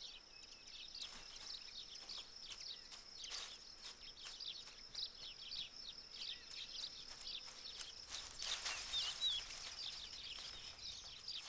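Faint countryside ambience: insects keep up a steady high-pitched sound, with many short, quick bird chirps over it.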